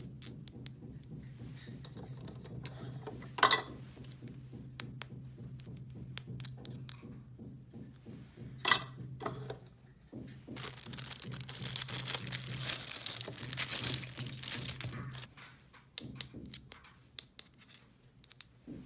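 Small plastic toy pieces and packaging being handled: scattered clicks and knocks, two sharper ones, and several seconds of crinkling about ten seconds in, over a steady low hum.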